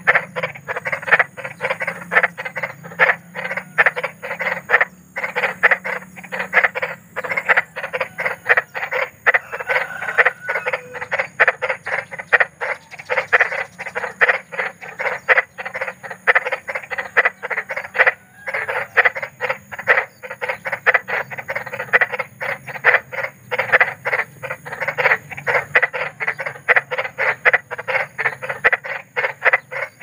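Frogs croaking in a continuous, dense run of short croaks, several a second, with only brief breaks. A faint steady low hum runs underneath.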